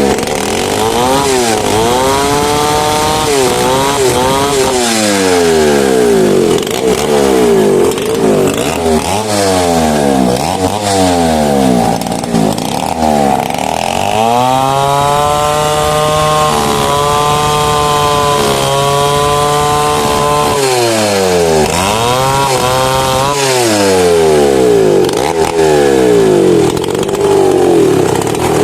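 Two-stroke chainsaw cutting a mahogany tree. The engine revs up and down about once a second, then holds at a steady high speed for about six seconds midway, then revs up and down again.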